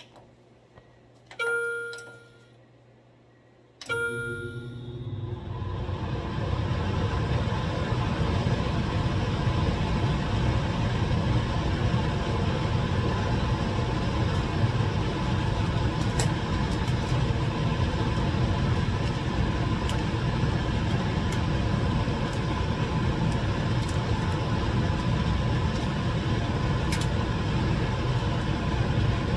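Two short electronic beeps, about a second and a half and four seconds in. Then the biosafety cabinet's blower starts, building over about two seconds into a steady, loud, storm-like rush of air.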